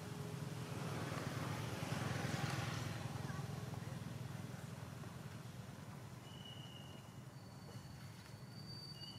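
A low steady hum with a hiss over it, slowly fading away; two thin, steady high whistles come in near the end.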